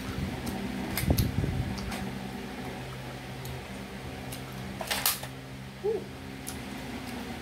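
Plastic clicks and rattles of an X-Shot Dino Attack foam-dart blaster being handled and readied, with a louder clack about five seconds in, over a steady fan hum.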